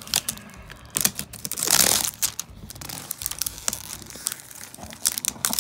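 Clear plastic shrink wrap crinkling and crackling as fingers pick at it and pull it off a cardboard box. There are sharp little clicks throughout and a louder stretch of crinkling about one and a half seconds in.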